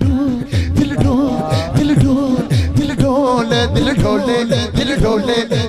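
A man singing a naat into a microphone, his voice bending and holding long notes, over a low rhythmic accompaniment that pulses about twice a second.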